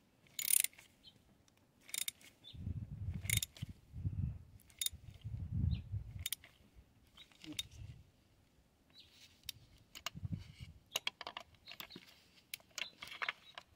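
Irregular clicks and knocks of hand tools on a spark plug being tightened, with dull handling thumps in between.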